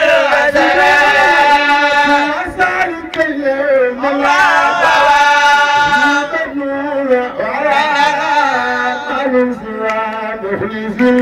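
A man chanting through a handheld microphone and loudspeakers, in long, wavering held notes with brief pauses between phrases.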